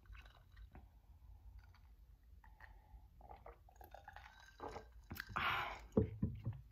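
Close-miked eating sounds: chewing and small mouth clicks, then gulps from a glass of iced water. Near the end there is a short breathy burst, then a knock as the glass is set down.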